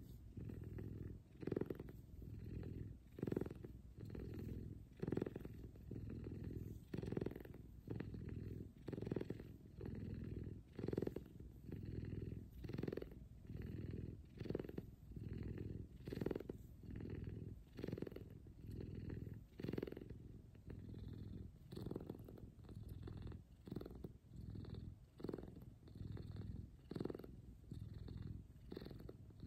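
F2 Savannah cat purring loud and steadily, the purr swelling and fading in an even rhythm with each breath in and out.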